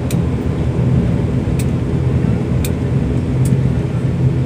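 Cabin drone of an ATR 72 turboprop's engines and propellers, steady and low, after landing, with four light clicks spread through it.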